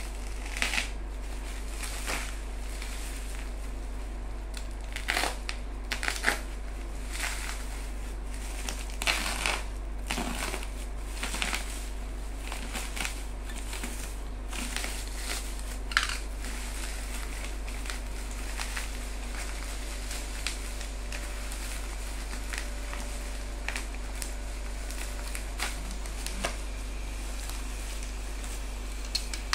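Bubble-wrap packaging crinkling and rustling in irregular bursts as it is slit with a box-cutter and pulled open by hand, with a few sharper crackles.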